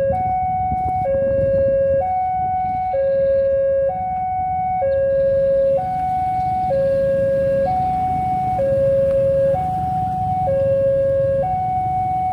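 Railway level-crossing warning alarm sounding its two-tone signal, a higher tone and a lower tone alternating about once a second, the crossing's warning that a train is approaching. A steady low rumble runs beneath it.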